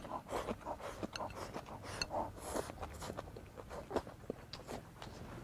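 A person eating a bowl of rice with chopsticks: rice shoveled in from the bowl's rim, then chewing with a full mouth, heard as many small irregular clicks and smacks.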